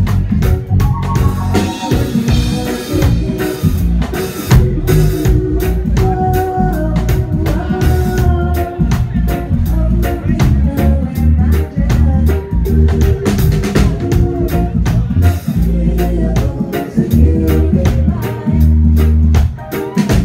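Live reggae band playing: drum kit and deep bass to the fore, with guitar or keyboard lines over them.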